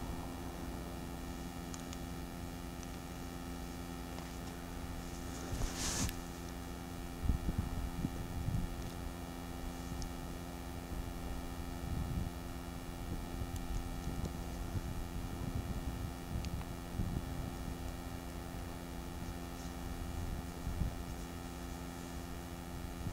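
A steady hum of several held tones, with a few dull low thumps and one short hiss about six seconds in.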